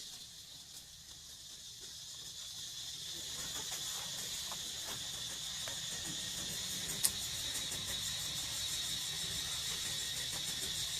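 Steady high-pitched chorus of forest insects, swelling over the first few seconds and then holding, with a single sharp click about seven seconds in.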